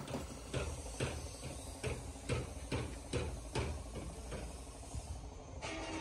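A run of sharp knocks, a little over two a second, over a steady low rumble. The knocks thin out after about three and a half seconds.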